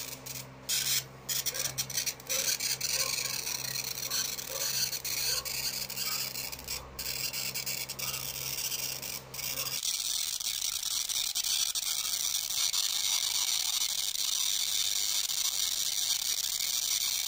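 High-voltage arc from a homemade generator built on an old CRT TV's flyback transformer, sizzling and rasping steadily across an air gap of about a centimetre between two wire tips. About ten seconds in, a low hum underneath drops away and the hiss turns steadier and brighter.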